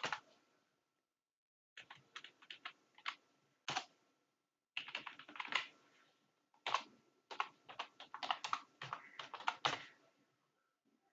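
Typing on a computer keyboard: runs of quick keystrokes broken by short pauses, with a silent stretch about a second in.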